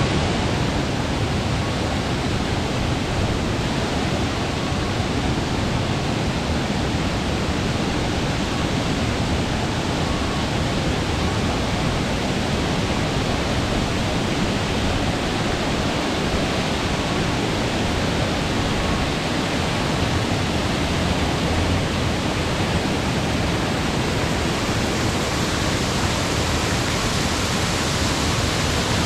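Steady rush of water spraying and splashing down from a water-park play structure's fountains and spray nozzles into the shallow pool.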